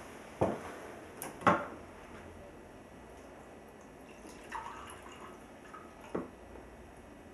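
Red enamel mugs and pot knocked down onto a wooden tray, two sharp knocks in the first two seconds, then liquid poured from the enamel pot into a mug, with another knock about six seconds in.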